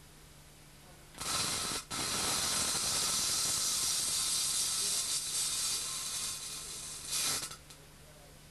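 Spark gap of the Emdrive's microwave generator firing continuously, a loud even noise. It starts about a second in, cuts out for a moment, then runs steadily for about five seconds before stopping.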